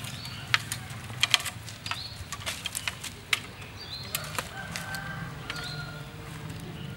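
Thin split-bamboo strips clicking and clattering against each other as they are handled and laid side by side, the clicks coming in quick irregular clusters that thin out after about four seconds.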